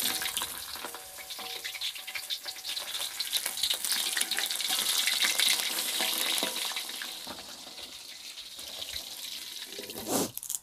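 Cue bandeng (preserved milkfish) frying in shallow hot oil in an aluminium wok: a steady sizzle full of fine crackles, louder in the middle and dying down toward the end.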